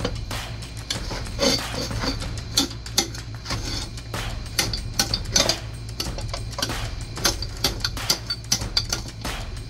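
Rapid, irregular metallic clicks and clanks of hand tools working a moped tire onto its rim, over a steady low hum.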